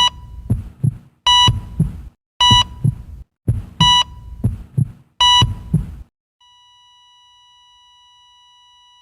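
Heart-monitor sound effect: heartbeat thumps in lub-dub pairs, each with a short beep, repeating about every second and a bit. About six seconds in the beats stop and a steady, quieter flatline tone takes over.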